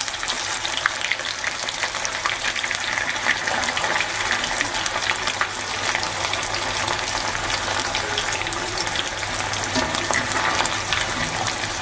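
Boiled chital fish dumplings (muitha) deep-frying in hot white oil in a karai on medium heat: a steady sizzle with fine crackling.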